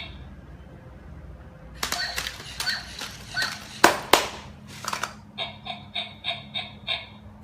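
A robot puppy toy: a series of sharp, irregular clicks and knocks, then a quick run of short electronic chirps from its sound chip about two-thirds of the way in.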